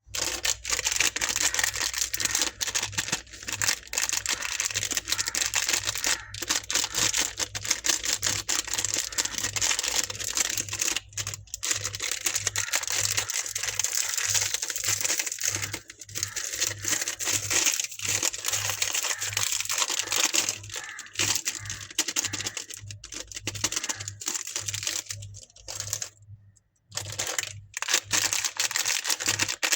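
Candy wrappers being crinkled and torn open close to the microphone: dense, continuous crackling with many sharp snaps, broken by a brief pause near the end.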